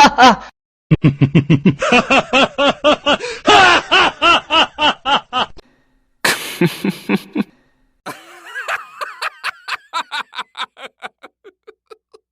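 A run of laughter sound effects, one clip after another with short breaks: a long stretch of rhythmic 'ha-ha-ha' laughing, a brief laugh about six seconds in, then a laugh that trails off toward the end.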